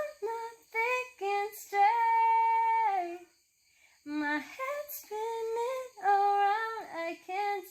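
A woman singing a melody with no accompaniment: a run of short notes, then a long held note about two seconds in, a pause, and another long held note about six seconds in.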